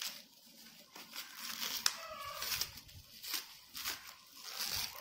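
Plastic bag and bubble wrap crinkling and rustling in a run of short bursts as they are pulled open by hand, with a sharp click a little before two seconds in. A brief pitched call, like a hen's cluck, sounds just after it.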